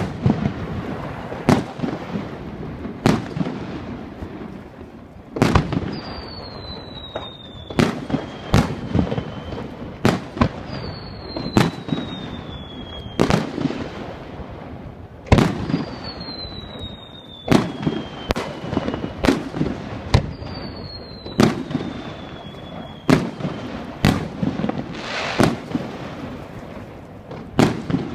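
Aerial firework shells bursting: sharp bangs at irregular intervals, some in quick pairs, over a continuous rumble of echoing booms. A thin falling whistle sounds four times, about five seconds apart.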